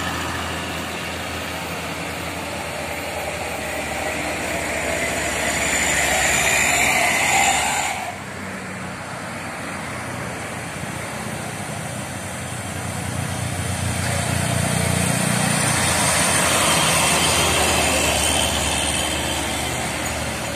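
Diesel trucks crawling up a steep hill in low gear, engines running hard as they pass close by. The first grows louder and breaks off suddenly about eight seconds in; then another heavy engine builds up, peaks and fades as it passes.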